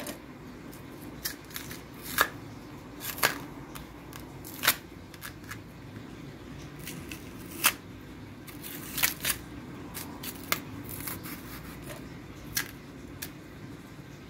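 Thick peel of a green plantain cracking and tearing as it is pried off by hand, about twenty sharp, irregularly spaced snaps of differing loudness.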